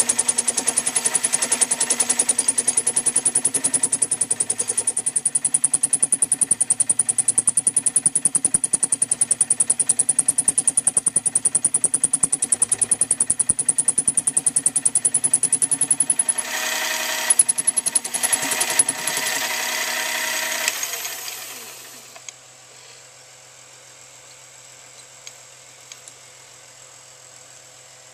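Small metal lathe turning an aluminium bar blank while the cutting tool roughs its outside diameter down toward concentric, with a fast, even knocking and a high whine. Around three-quarters through, the sound steadies, then the spindle winds down and stops, leaving a faint hum.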